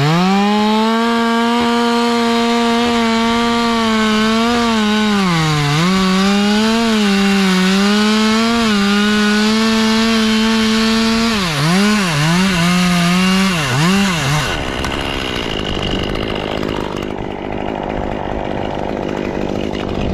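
Two-stroke chainsaw running at full throttle, its pitch sagging and recovering as the chain is loaded in the wood, then blipped several times before it cuts off about fourteen seconds in, leaving a steady background hiss.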